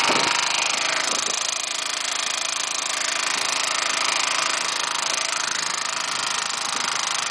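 Gasoline lawn-mower engine driving a boat's longtail drive, running steadily under load with a fast, rattling beat.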